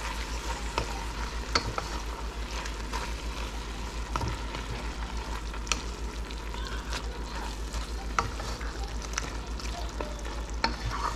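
Ground beef and tomato sauce sizzling in a metal pan while a wooden spatula stirs it, scraping and knocking against the pan in scattered sharp clicks. A steady low hum runs underneath.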